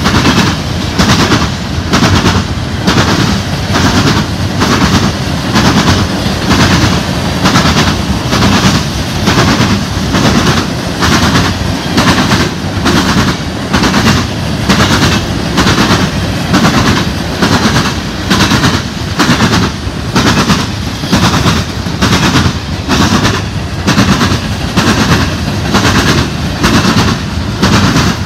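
Loaded coal hopper cars of a freight train rolling past, loud, their wheels clacking over rail joints in a steady rhythm a little more than once a second over a continuous rumble.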